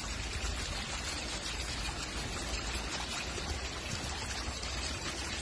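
Steady rush of running water, like a trickling stream.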